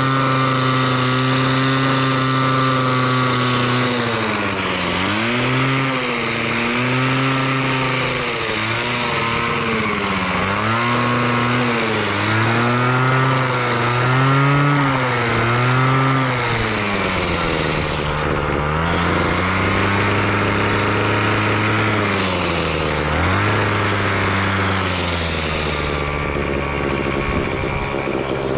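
Two-stroke engine of a gas-powered pole hedge trimmer (multi-tool) running, revved up and let back repeatedly as the throttle is worked. It then drops to a lower, steadier speed for several seconds and revs up again near the end.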